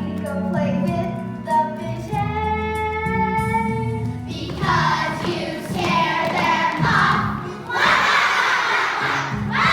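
Children singing a stage musical number with instrumental accompaniment: held sung notes at first, then louder, fuller singing from about four and a half seconds in.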